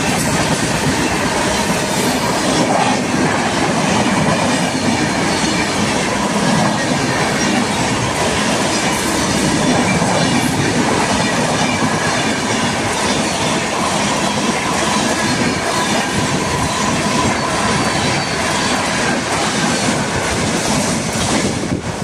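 Train coaches rolling past at speed. There is a steady rush of steel wheels on rail, with clicks as the wheels cross rail joints and a faint, wavering wheel squeal.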